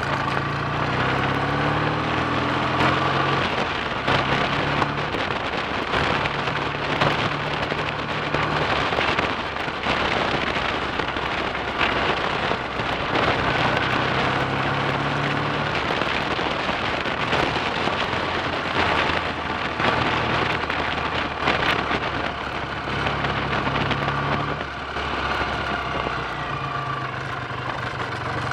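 Freshly rebuilt BSA A65 Thunderbolt 650 cc parallel-twin engine running on the move, its revs climbing and falling back several times. Heavy wind rush over the microphone.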